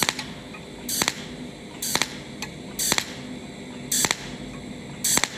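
Cold welding machine firing one pulse per weld spot on 1.0 mm aluminium tube with filler wire, about once a second. Six short, sharp hissing zaps in all, over a faint steady hum.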